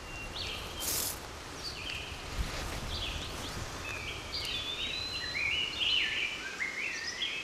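Outdoor ambience with birds singing: a run of short whistled notes, some sliding or stepping down in pitch, over a low steady hiss. A brief rustle about a second in.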